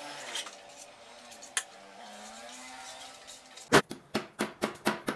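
Quiet room noise with a single click, then, near the end, a rapid run of sharp knocks, about four a second: a mallet striking a Honda CG125 front fork leg to knock the fork apart.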